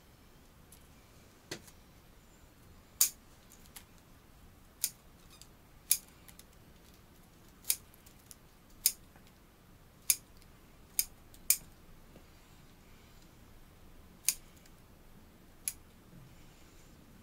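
Bonsai scissors snipping twigs and shoots off a Korean hornbeam bonsai: about a dozen sharp, irregularly spaced snips. The overlong branches are being cut back to tidy the tree's shape.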